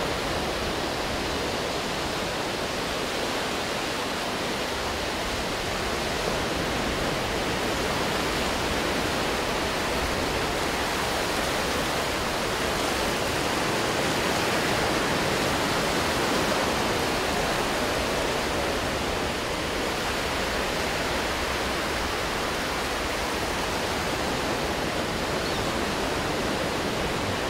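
Ocean surf breaking on a sandy beach: a steady, even rush of water with no single wave standing out.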